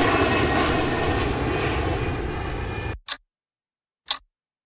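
Airliner engine sound effect, a loud steady noise with a high whine, cutting off suddenly about three seconds in. Then a clock ticking, two sharp ticks a second apart.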